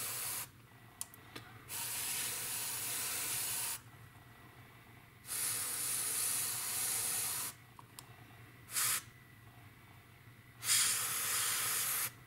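Airbrush spraying in on-and-off bursts of hiss, most about two seconds long, with one brief puff about two-thirds of the way through.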